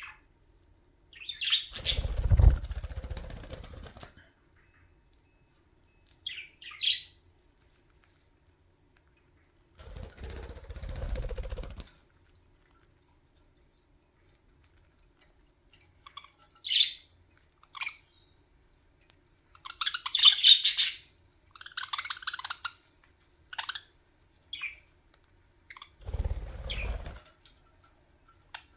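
Pet budgerigars chirping in short, scattered calls, densest in a cluster past the middle, with a few low rumbling stretches of a second or two that fit wing flapping near the microphone.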